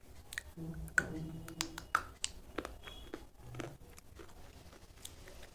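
Slate pencil being bitten and chewed close up: a string of sharp, brittle crunches and clicks, thickest through the middle and thinning out near the end.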